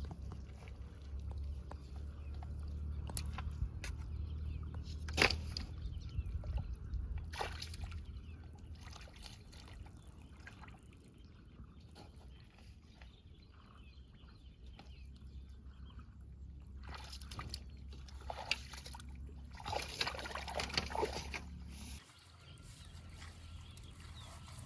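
Water sloshing and splashing, with a few short splashes spread through it, over a low steady rumble that cuts off suddenly near the end.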